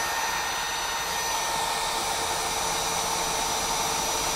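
Milwaukee cordless drill in low-speed drill mode, boring through thick steel with an annular cutter. The motor and gears give a constant, steady whine over the hiss of the cutter, which is taking chunky chips.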